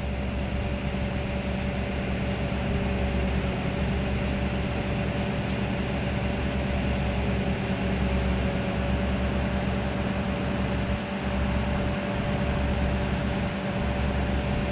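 Heavy-equipment diesel engine running steadily: a constant drone with a steady whine on top.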